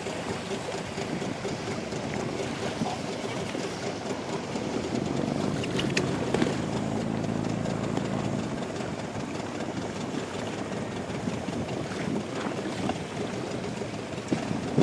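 Small motorboat's engine running over a steady hiss. Its low hum grows stronger for a few seconds in the middle, then drops back.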